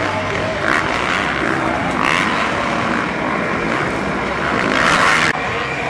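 Several motocross dirt bikes' engines revving on the track, their pitch rising and falling as the riders work the throttle over the jumps. A louder surge near the end cuts off suddenly.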